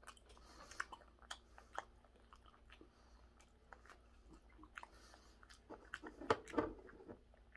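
A man chewing raw tuna belly sashimi: quiet, scattered wet mouth clicks, a little louder about six seconds in.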